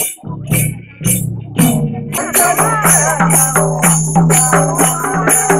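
Tharu folk dance song: singing over a drum and jingling percussion. The beat becomes faster and fuller about two seconds in.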